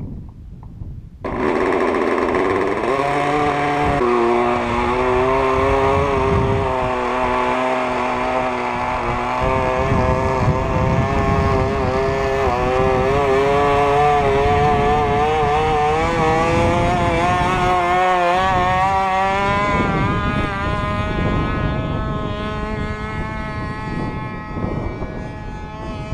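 Small KMD-2.5 model-aircraft diesel (compression-ignition) engine catching about a second in and running at high revs with a buzzing, wavering pitch that steps up a few seconds later. It grows fainter near the end as the model flies away.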